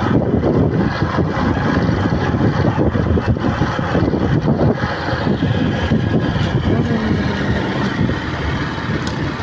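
Heavy wind buffeting the microphone while on the move, a loud, uneven rumble with vehicle road noise mixed in.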